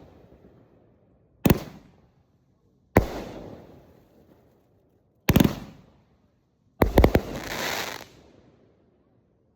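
Fireworks going off: four sharp bangs about a second and a half apart, each dying away in an echo. The last is a quick cluster of bangs followed by about a second of crackling hiss.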